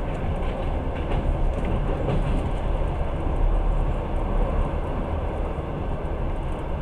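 Passenger train running at speed, heard from inside the carriage: a steady low rumble of wheels on rails, with a few faint ticks and rattles in the first couple of seconds.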